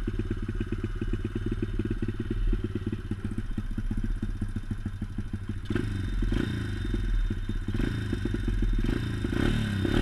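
Pit bike engine running at low, fairly even revs: a rapid, steady putter of exhaust beats, with a few brief knocks in the second half.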